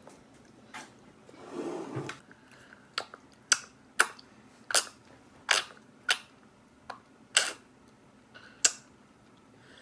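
A string of about a dozen sharp clicks, irregularly spaced about half a second to a second apart: a spoon clicking against a dish, with a short soft rustle about two seconds in.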